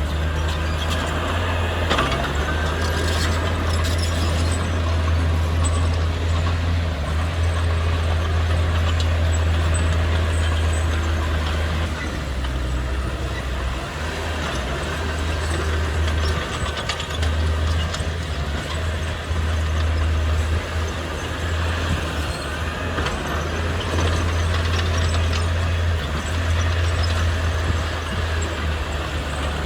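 Heavy diesel earth-moving machinery running with a steady low rumble, with faint higher squeals coming and going over it.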